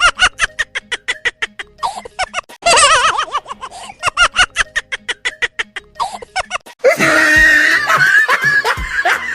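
Loud, high-pitched laughter: a warbling laugh breaking into a quick run of short 'ha' bursts, the same pattern heard twice. Near the end comes a denser, louder stretch of laughing and shrieking voices.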